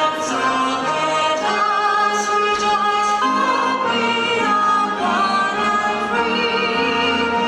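A song with a singing voice and instrumental accompaniment, holding a note with vibrato near the end.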